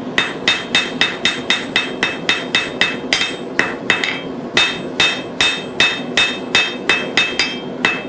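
Blacksmith's hand hammer striking a thin red-hot steel bar on an anvil, drawing out the end into a buckle pin. Quick, even blows, about four a second, each with a bright metallic ring, with a brief pause about four seconds in.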